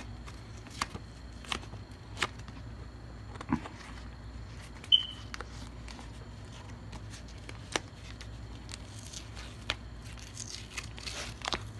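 Lime-green masking tape crinkling and crackling as it is peeled off a small 3D-printed PLA tag, in scattered sharp crackles that grow denser near the end. A brief high chirp about five seconds in, over a steady low hum.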